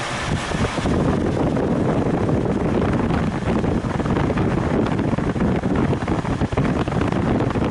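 Rushing air from the running air-conditioning fans of a 2008 Acura MDX buffeting the microphone, growing louder about a second in and staying steady.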